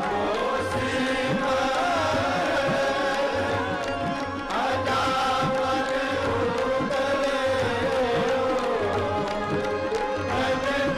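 Sikh shabad kirtan: a large group of ragis singing a hymn to held harmonium chords, with a steady tabla beat underneath.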